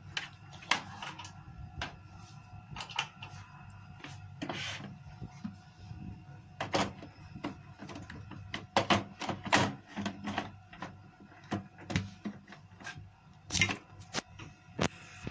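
Irregular clicks and knocks of a glass blender jar being set onto and twisted into its plastic base, plastic and glass knocking together.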